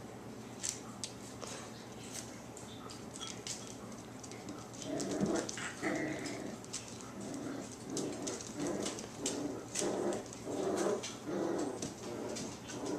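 Five-week-old border collie puppies play-fighting: short puppy vocalisations repeating about once a second from about five seconds in, with one brief high squeak, over scattered light clicks and taps.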